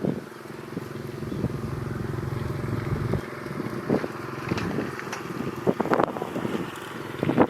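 A small engine running steadily, then cutting off about three seconds in, followed by scattered short clicks and knocks.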